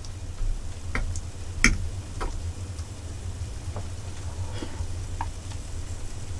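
A fork clicking and scraping on a plate a handful of times as food is scooped up and eaten, the loudest click about one and a half seconds in, over a low steady hum.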